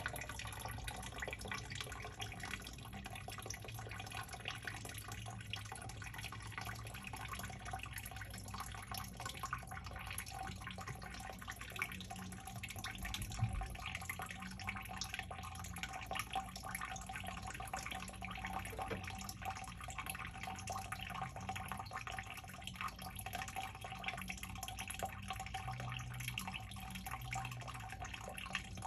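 Groundwater trickling and dripping into a shallow sump basin from the drain tile as it refills between pump cycles, over a steady low hum. A single low knock comes about halfway through.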